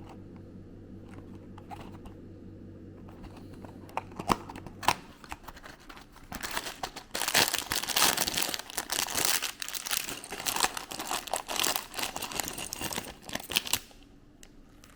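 Packaging of a building-block set being crinkled and torn open. A few sharp clicks come about four seconds in, then dense crinkling runs for about seven seconds before stopping shortly before the end.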